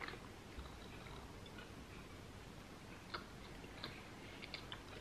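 Faint chewing of a soft raspberry cream donut: quiet wet mouth sounds and a few small clicks, more of them in the last two seconds.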